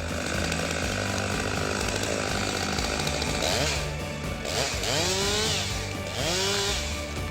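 Chainsaw running, its pitch rising and falling three times in the second half as it revs and cuts, over background music.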